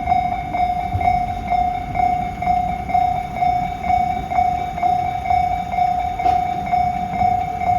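Japanese railway level-crossing warning bell ringing steadily, about two strokes a second, over a low rumble.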